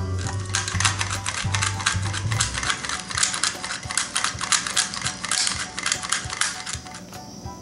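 A spoon or whisk clicking rapidly against a bowl while stirring a sauce mixture, starting about half a second in and stopping near the end, over background music.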